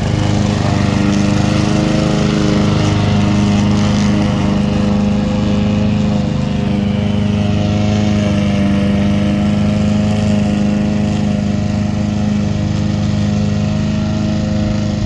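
Homemade remote-control lawn mower running steadily, with a constant machine hum that drifts only slightly in pitch.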